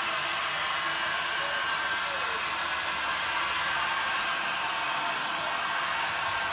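Handheld hair dryer running steadily: an even rush of blown air with a faint steady whine.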